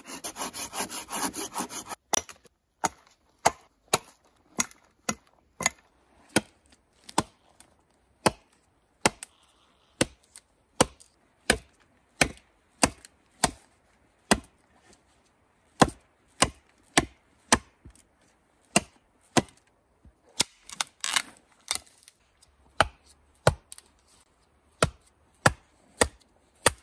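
A small axe chopping into a dry spruce pole: sharp, evenly paced strikes, about one and a half a second, with short pauses between runs. For the first two seconds there is instead a fast rasping of a blade worked against the wood.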